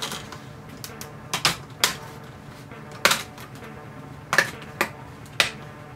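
Plastic snap clips of a laptop's LCD screen bezel popping loose as the bezel is pulled off by hand: a series of about seven sharp, irregularly spaced clicks and snaps.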